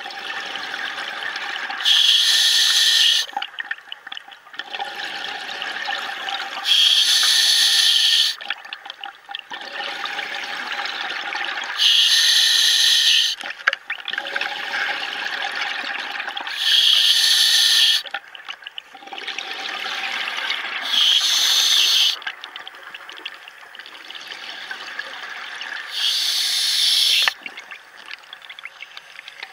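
Scuba diver breathing through a regulator underwater: six sharp hissing inhalations, one every four to five seconds, each followed by a longer bubbling exhale.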